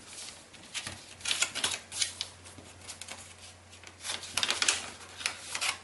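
Duo-colour kami origami paper rustling and crackling under the hands as it is creased and collapsed into a waterbomb base. The crisp crackles come in irregular bursts, busiest about a second and a half in and again past four seconds.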